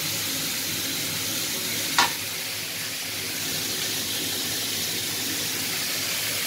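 Cubes of pork sizzling as they brown in a pan, stirred with a metal spoon, with one sharp clink of the spoon against the pan about two seconds in.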